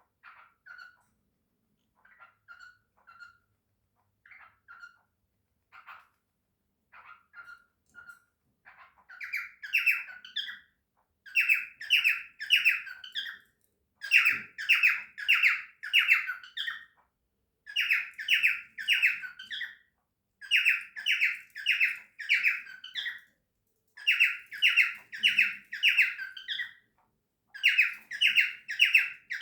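Cockatiel calling: soft, short chirps at first, then from about nine seconds in, loud, repeated squawking calls in quick runs of three or four, phrase after phrase.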